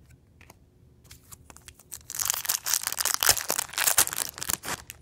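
Foil wrapper of a 1999 Donruss football card pack being torn open and crinkled: a few light clicks, then a loud, dense crackling crinkle from about two seconds in until just before the end.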